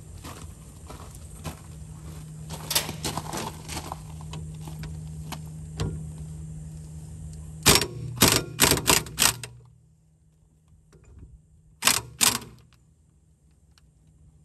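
Sharp metal-on-metal strikes: light taps and clicks at first, then a run of five loud clanks about a third of a second apart near the middle and two more a few seconds later. A steady low hum runs under them and stops about ten seconds in.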